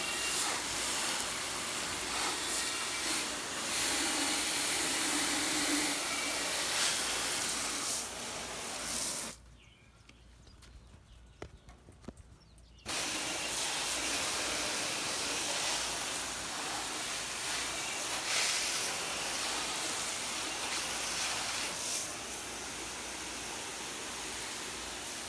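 Water spraying hard from a hose nozzle as a steady hiss in two long sprays. It cuts off abruptly about nine seconds in and starts again after a pause of about three and a half seconds.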